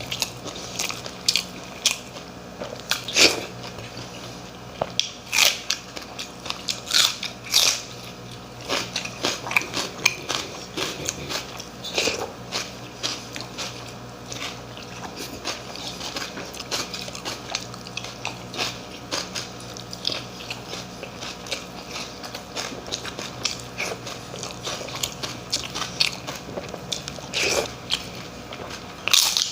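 A person biting and chewing crunchy food close to the microphone, with irregular crisp crunches throughout.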